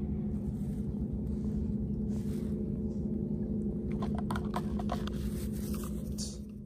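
A steady low hum over a low rumble, with a few short, higher-pitched sounds about four to five seconds in.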